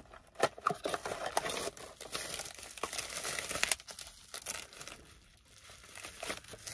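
Plastic packaging crinkling as bubble wrap and a clear plastic bag are handled and pulled open: an irregular crackle that eases off briefly a little past the middle, then picks up again.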